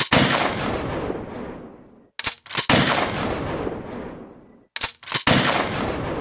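Gunshot sound effects in a song outro, with no beat under them. Three times, a pair of quick sharp cracks is followed by a loud blast that echoes away over about two seconds.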